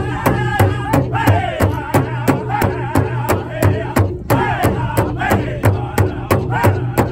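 Powwow drum group singing a fast fancy shawl song, the men beating one large shared drum together in a steady beat of about three strokes a second under their voices.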